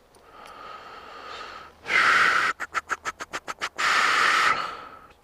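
A plastic zip tie being pulled tight through its ratchet: a loud rasp, then a run of about ten quick clicks at roughly nine a second, then a second loud rasp.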